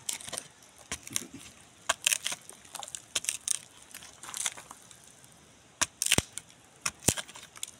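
A long knife blade prying and scraping into the crumbly rotten wood of a hollow mango trunk, making irregular crunching and crackling bursts, with two sharp clicks of the blade in the second half.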